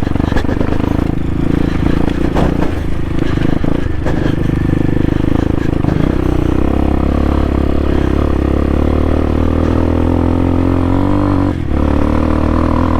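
CSC TT250 motorcycle's single-cylinder engine running steadily while riding off-road, with a brief drop in the engine sound near the end before it picks up again.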